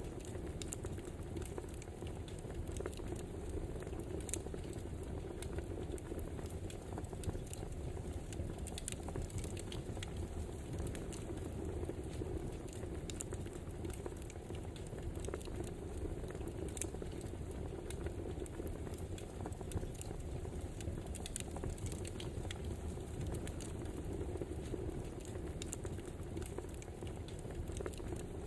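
Crackling wood fire: a steady rushing hiss with frequent irregular pops and snaps.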